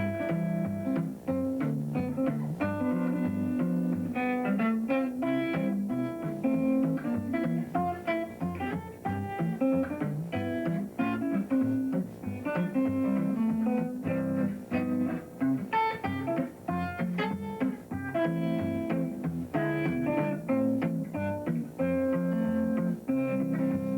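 Guitar played thumbpicking style: a steady run of picked bass notes under a plucked melody line.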